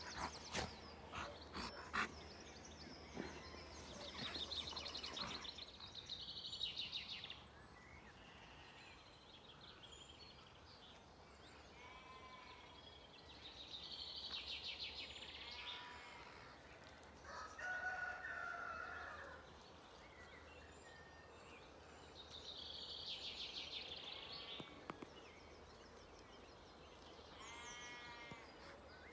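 Dawn chorus of wild songbirds: one bird repeats a high, fast trilling song phrase every nine or ten seconds, with shorter runs of rising notes from others between. About two-thirds through comes a lower call lasting a couple of seconds, and there are a few sharp clicks at the start.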